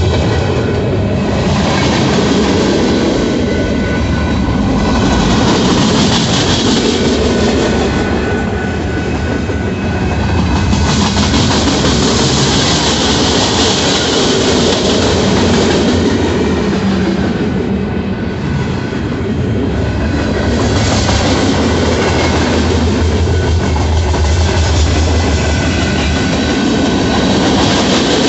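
Freight cars of a mixed freight train rolling past close by: a steady rumble and clatter of wheels on the rails, with a higher hissing wheel-on-rail noise that swells and fades several times, loudest around the middle.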